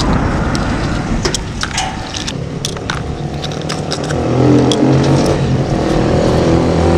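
Coins clicking as they are pried one by one off a fishing magnet, then from about four seconds in a motor vehicle engine running steadily, louder than the clicks.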